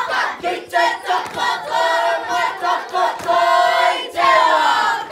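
A mixed group of children and adults chanting loudly in unison, in short phrases with brief breaks between them.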